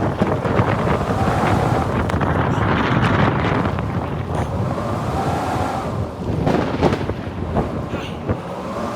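Strong blizzard wind gusting and buffeting the microphone as a dense, steady rush. A pitched whistle rises and falls a couple of times above it.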